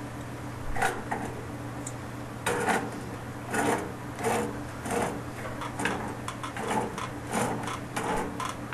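Black iron pipe tee and nipple being screwed by hand into a gas water heater's control valve: metal threads scrape in short strokes, one early on and then regularly about every two-thirds of a second from about two and a half seconds in. A steady low hum runs underneath.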